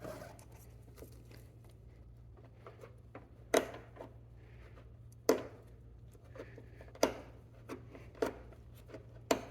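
Sharp plastic clicks and taps from a car's door-handle cap being pulled and worked loose from the door, about five distinct clicks one to two seconds apart with fainter ticks between, over a steady low hum.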